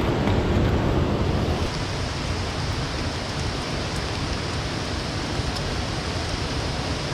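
Steady rush of river water and falling rain. About a second and a half in, the low rumble drops away and a brighter, even hiss carries on.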